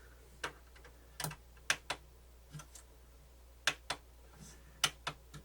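Irregular sharp mechanical clicks from an opened, powered-up Pioneer CT-W802R cassette deck as its mechanism is worked by hand, about a dozen, some in quick pairs, over a steady low hum. The deck clicks but its transport does nothing, since its drive belts have perished.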